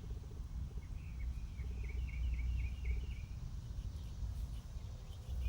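A bird calling outdoors: a quick run of short chirps from about a second in to past the three-second mark, over a steady low rumble.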